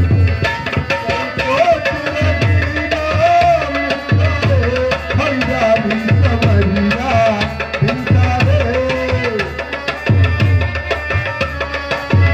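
Live bhajan music between sung lines: a tabla plays a steady rhythm, its low drum strokes sliding in pitch, under a gliding melody line.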